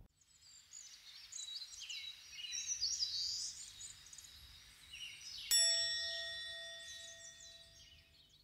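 Light high-pitched bird chirping, then a single bell-like chime struck about five and a half seconds in, ringing on and slowly fading.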